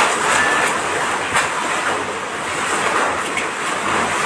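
Typhoon-force wind rushing through a store whose roof has been torn open, a steady loud rush with a few sharp knocks of loose debris.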